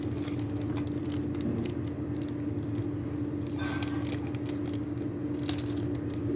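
Packaging and small accessories being handled as a lavalier mic box is unpacked: scattered light clicks, rattles and scrapes, with a short burst of rustling about halfway through, over a steady low hum.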